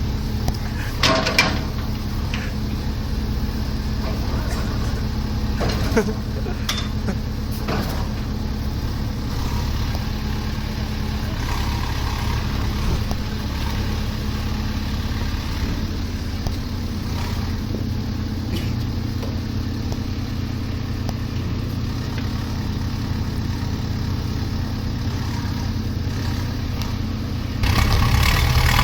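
Engine of a heavy construction machine running steadily, with a few short knocks, getting louder near the end as it is revved.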